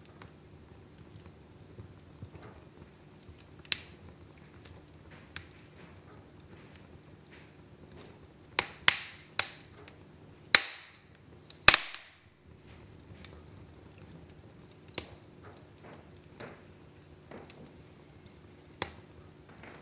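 Log fire in a fireplace crackling over a low steady background, with sharp pops now and then and a run of five loud pops around the middle.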